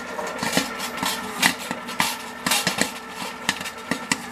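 Popcorn kernels popping in hot oil in the heated kettle of a Nostalgia vintage popcorn cart: irregular sharp pops, several a second, over the cart's steady hum. This is the start of popping, the first kernels bursting in the preheated kettle.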